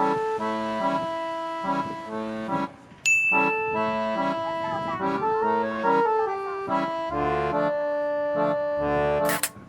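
Background music: a light, bouncy tune with accordion-like reedy notes over stepping chords. A bright ding sounds about three seconds in, and a short burst of noise comes near the end.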